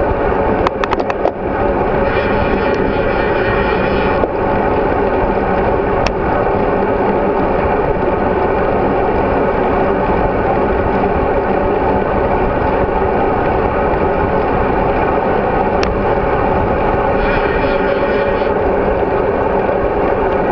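Steady rush of wind over a GoPro Hero3 mounted on a bicycle ridden at speed, with a few sharp clicks about a second in.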